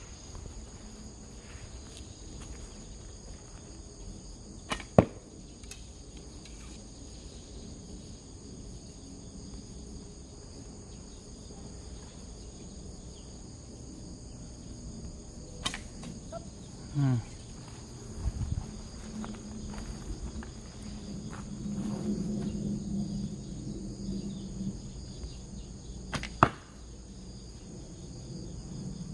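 Traditional recurve bow being shot: three sharp string-release snaps about ten seconds apart, near the start, the middle and the end. Steady high insect trilling runs underneath, with a brief low rising sound in the middle and a low hum after it.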